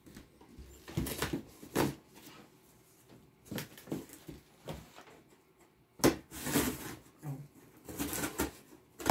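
Folding knife slitting packing tape on a cardboard box, then the flaps being pulled open: a run of short scrapes and rips of tape and cardboard, the loudest about six seconds in.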